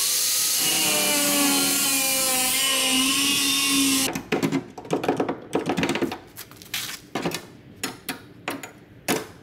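A power cutting tool spins up and cuts into the rusted sheet-metal body panel, its pitch dipping and wavering as it bites, then stops abruptly about four seconds in. A scatter of short clicks and knocks follows.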